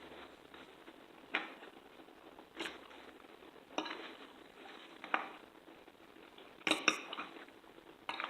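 Metal cutlery clinking against a plate about six times, roughly once a second, with a louder double clink near the end, as food is picked up and eaten.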